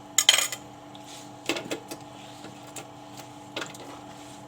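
Cut lemon pieces being dropped into a blender jar: a few knocks and clatters, the loudest cluster right at the start, over a steady background hum.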